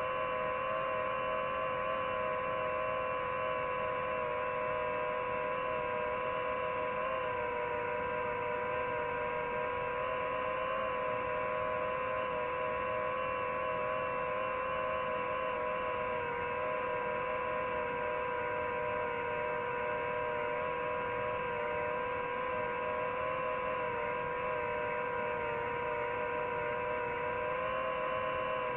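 DJI FPV drone's motors and propellers humming steadily in flight, a few held tones that waver slightly in pitch.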